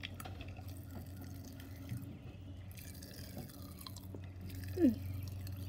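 Popping candy crackling and snapping with faint little pops inside a mouth held close to the microphone. A brief falling voiced sound comes just before the end.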